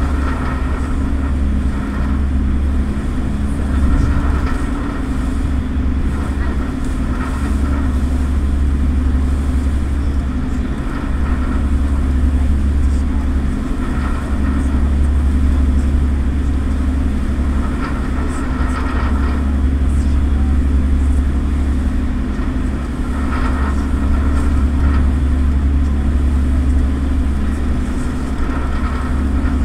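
Passenger ferry's engines running at cruising speed: a loud, steady, deep drone with an even hum above it that does not change through the crossing.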